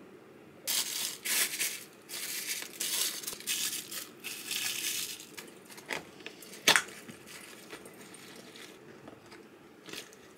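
Something being handled with crinkling, rustling bursts over several seconds, then a single sharp click.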